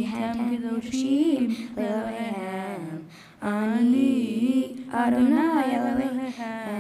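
A single voice singing a slow Hebrew prayer melody, with long held notes, broken by a short breath about three seconds in.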